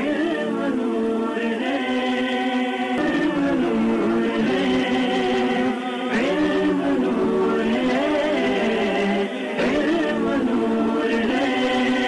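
Background music of wordless, choir-like vocals holding long notes that slowly glide up and down.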